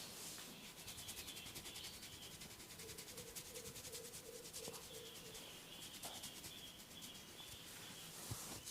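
Fingertips rubbing and scratching quickly over skin and hair in a head massage, in fast, even strokes.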